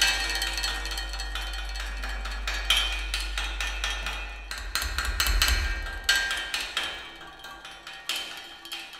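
Experimental percussion music played on metal milking-parlour fittings: irregular metallic knocks and strikes with ringing tones. Under them runs a steady low drone that turns into an uneven rumble about halfway through.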